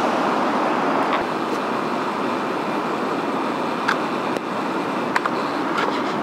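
Steady rush of floodwater pouring over the crest of a concrete dam wall in heavy flood, about 2.7 m deep over the top, with a few light clicks through it.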